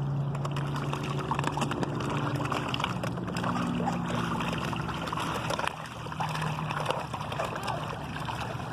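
Pond water splashing and trickling, a dense crackle of small splashes, over a low steady hum.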